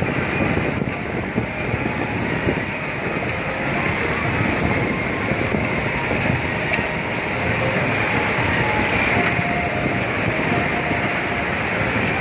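A vehicle engine running steadily as it drives slowly over a rough, rocky mountain track, mixed with the rush of a fast white-water river alongside.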